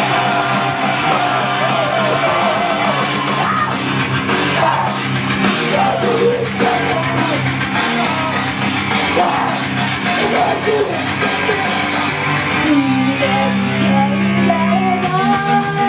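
Loud rock music played live, with guitar and drums under a singing voice; the top end drops away for a couple of seconds near the end before the next section comes in.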